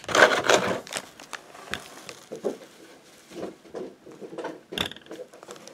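Clear plastic bag crinkling as it is handled, loudest in the first second, then quieter intermittent rustles and small clicks.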